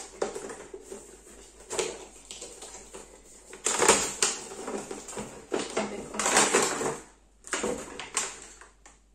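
Paper and plastic packaging of a pair of wireless headphones being handled, crinkling and rustling in several irregular bursts. The loudest bursts come about four seconds in and again around six to seven seconds in.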